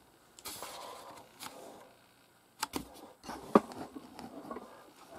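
Faint rustling and a few sharp clicks and knocks from a phone camera being handled and repositioned, the loudest click about three and a half seconds in.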